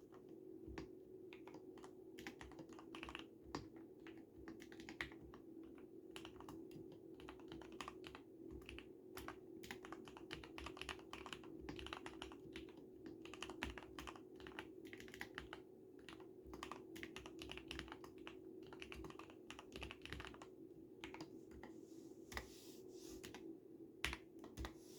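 Continuous typing on an Akko x Ducky ZERO 3087 mechanical keyboard with lubed Cherry MX Red (45 g) linear switches, dampened by a two-layer tape mod and two layers of soundproofing. Keystrokes come in quick, irregular runs, with one louder stroke near the end.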